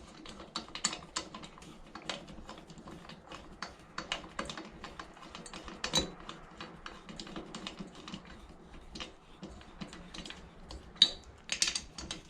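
Hand ratchet clicking in quick runs as a 12 mm socket turns the head bolts into a small engine's cylinder head, with a few sharper metal clinks.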